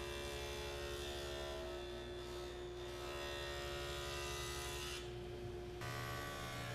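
Table saw running with a steady motor hum while a walnut face frame is fed across a dado blade to cut dados. The sound shifts abruptly about six seconds in.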